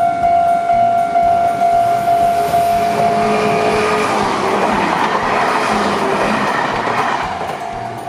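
Railway level-crossing warning bell ringing with a steady, repeated tone while an electric train runs past. About three seconds in, the train's wheel and motor noise rises and drowns the bell, then fades near the end, leaving the bell ringing again.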